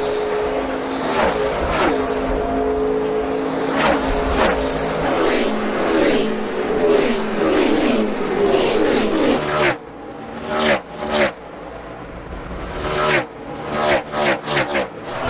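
NASCAR Cup Series stock cars' V8 engines running at race speed, with engine notes sliding downward as cars go by. About ten seconds in the sound drops, and a quick string of cars flashes past one after another.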